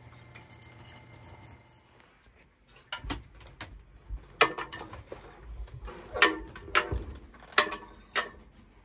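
A faint steady hum, then from about three seconds in a run of sharp metallic clanks and knocks with a short ring. Five of them are much louder than the rest.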